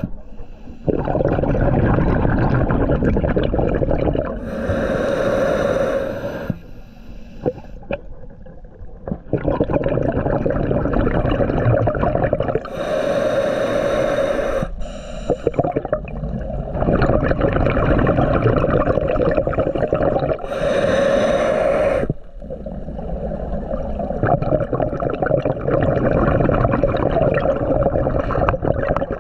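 Scuba diver breathing through a regulator underwater: three short hissing inhales about seven or eight seconds apart, with long rumbling stretches of exhaled bubbles between them.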